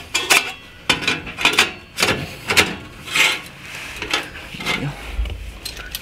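Ratchet wrench tightening the fastening on a Roush axle-back exhaust, in a series of irregular raspy strokes, about two or three a second.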